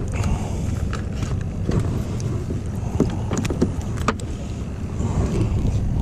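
Steady low rumble of a small fishing boat's motor running, with scattered short clicks and knocks.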